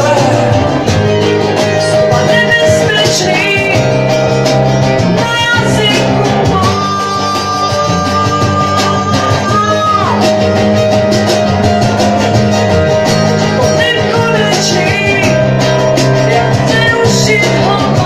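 Live unplugged band music: guitars playing chords under a harmonica carrying long held notes with bends and short trills, with some singing.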